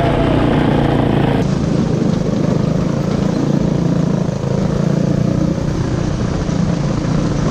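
Homemade dual-engine go-kart running steadily under way on a dirt trail, its small engines giving a steady drone. The sound turns abruptly duller about a second and a half in.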